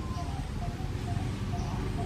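Steady low rumble of distant road traffic, with a short note repeating about three times a second over it.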